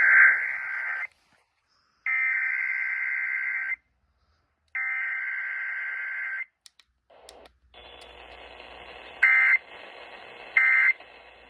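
Emergency Alert System SAME header sent three times: harsh, buzzing digital data bursts about a second and a half each, separated by short silences. A steady hiss of AM radio reception follows, broken near the end by two short data bursts of the end-of-message code.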